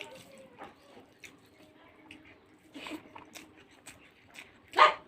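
Close-up eating sounds of a person eating rice and fish curry: soft chewing, lip smacks and small clicks. Near the end there is one short, loud burst.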